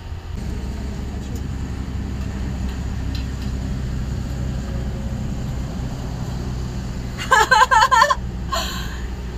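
A steady low mechanical rumble with a low hum, then a woman laughing in a short burst about seven seconds in.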